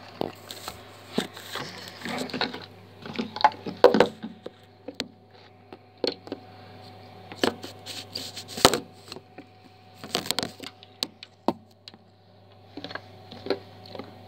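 Irregular knocks, clicks and rustles of a handheld phone being gripped and moved close to its microphone, over a steady low hum.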